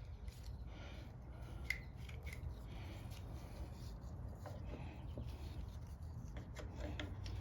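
Light scattered clicks and rubbing from small mower parts being handled and fitted by hand, with one sharper click about two seconds in, over a low steady hum.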